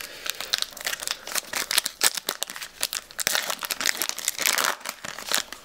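Foil trading-card booster pack wrapper crinkling and crackling as it is handled and torn open, in many quick, irregular crackles.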